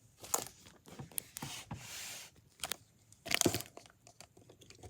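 Plastic wrapping being torn open and crinkled by hand: a run of irregular crackles and rustles, loudest a little over three seconds in.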